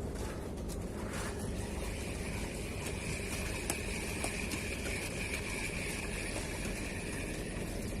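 Steady low engine rumble. A steady high whine joins in about a second and a half in and holds until near the end.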